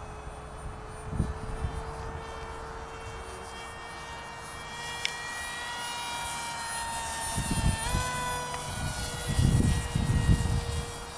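RC parkjet model of a Boeing ALCM cruise missile flying past, its motor and propeller giving a steady whine that climbs slowly and then steps up sharply in pitch about eight seconds in. Wind gusts on the microphone rumble underneath, the loudest of them near the end.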